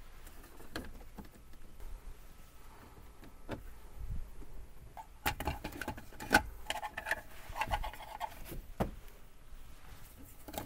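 Light handling sounds from the plastic centre console trim of a Land Rover LR4 being refitted and screwed back down: scattered clicks and knocks of plastic and a screwdriver, busier after about four seconds.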